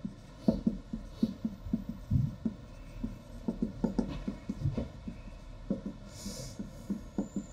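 Writing by hand on a board: a quick, irregular run of short strokes, about three or four a second.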